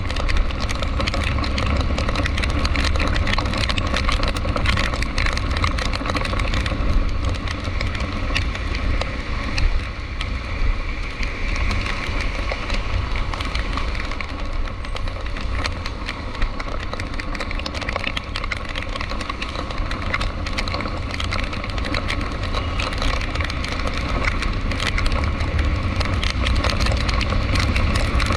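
A car driving in the rain: a steady low engine and road rumble with many small, quick ticks of raindrops hitting throughout.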